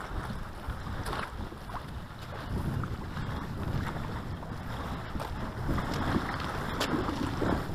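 Wind gusting over the microphone: an uneven, low rushing noise with no distinct events.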